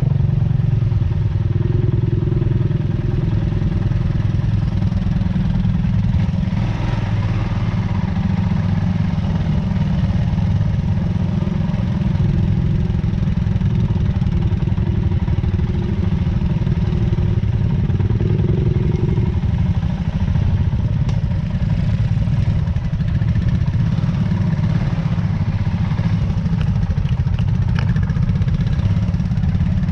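Small motorcycle engine running steadily at low speed, a continuous low drone, with a few light knocks or rattles near the end.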